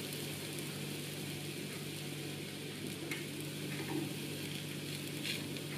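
A thin blin (crêpe) frying on its second side in a crêpe pan gives a low, steady sizzle. A couple of faint ticks come later as a knife touches the pan.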